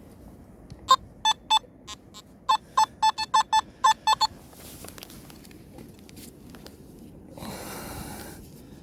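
Metal detector (Nokta Makro Simplex+) giving a run of short, sharp electronic beeps at two slightly different pitches, about a dozen in three seconds, as it is swept over a dug target; then a brief rustle near the end.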